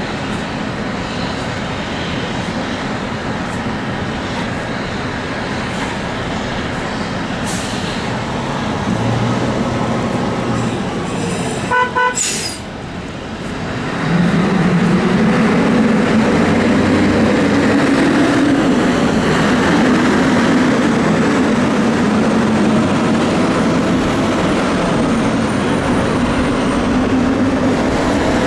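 Fire truck engines running steadily, with a short pulsing horn toot about twelve seconds in; about two seconds later a heavy engine runs up and stays louder, its pitch wavering.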